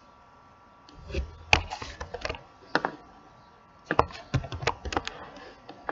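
Computer keyboard keys tapped in two short flurries, about a second in and again about four seconds in, over a faint steady hum.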